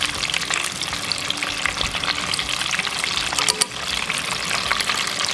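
Mozzarella sticks deep-frying in hot oil, a steady dense crackling sizzle.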